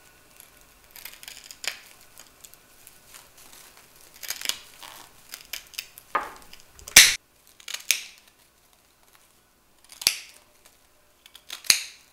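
Scissors snipping through a dried natural loofah sponge, a series of separate cuts through the stiff fibres, the loudest about seven seconds in.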